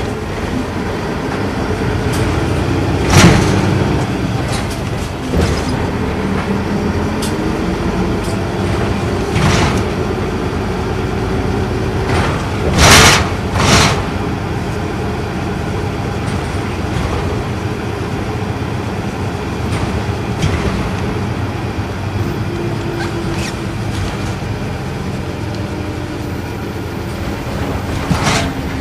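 Isuzu Erga Mio bus's inline-six diesel running under way, heard from inside the passenger cabin: a steady low engine and road drone with a drivetrain whine that shifts pitch with speed. Sharp knocks from the body jolting over the road cut through, the loudest a pair a little under a second apart about halfway through.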